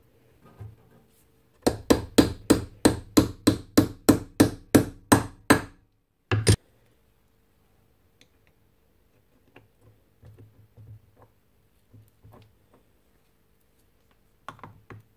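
Hammer striking during a bearing change on a miter saw motor: a quick, even run of about fifteen blows, roughly four a second, then one more blow a second later. Faint small clicks and knocks of parts being handled follow.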